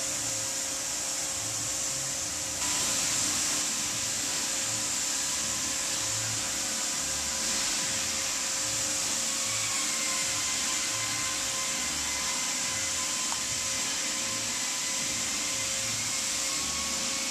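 Steady whir and hiss of a small electric motor, stepping up in loudness about two and a half seconds in.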